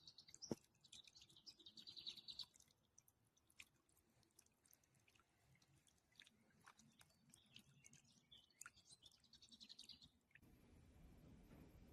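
Faint chirping and twittering of small birds in two short spells, with scattered light clicks.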